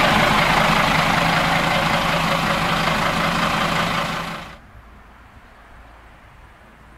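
Siemens-Duewag RegioSprinter diesel railcar running past close by: steady engine hum mixed with running noise. It cuts off suddenly about four and a half seconds in, leaving faint outdoor background.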